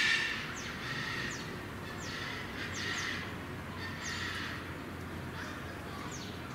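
Japanese black bear tearing at and chewing leafy plants: rustling foliage and rhythmic crunching about once a second, loudest right at the start.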